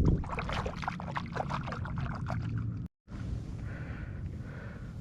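Water splashing and dripping at close range for about three seconds, then a sudden cut to a steadier low rush of water and air.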